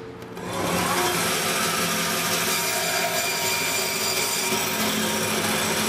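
Meat band saw running and cutting a lamb saddle in half. It is a steady, even sound with a few held tones, and it comes up about half a second in.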